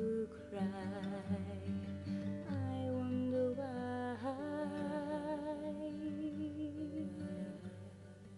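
A solo voice sings a long, melismatic line on the word "cry", its held notes wavering with vibrato, over strummed acoustic guitar. Near the end the voice stops and the guitar plays on more quietly.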